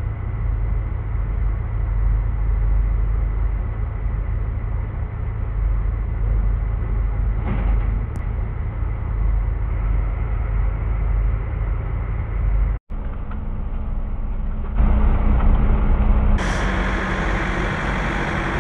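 Semi-truck diesel engine running steadily, a low rumble heard from inside the cab. It cuts out for an instant about two-thirds through, and near the end a louder hiss joins it.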